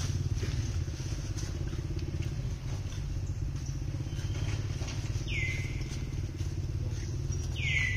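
An engine running steadily, a low pulsing rumble, with two whistled bird calls over it, each dropping sharply in pitch and then held for about a second, about five seconds in and again near the end.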